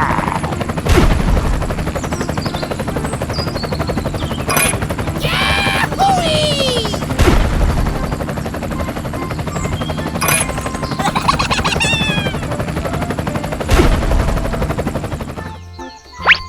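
A machine's engine running with a fast, steady rattle, broken by three heavy thuds spaced several seconds apart, with short whistling, gliding sound effects between them. Near the end the rattle cuts off and bouncy music starts.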